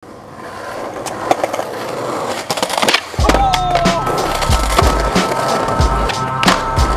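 Skateboard wheels rolling on pavement with sharp clacks of the board. About three seconds in, a music track with a bass beat comes in under the skating sounds.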